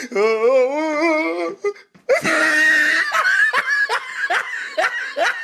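Women laughing: a long wavering laugh, then after a short break a run of short rising bursts of laughter, a few a second.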